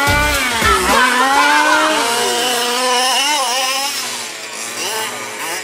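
Radio-controlled off-road buggy's engine revving up and down repeatedly as it races around the track, the pitch rising and falling several times and dipping a little about four seconds in.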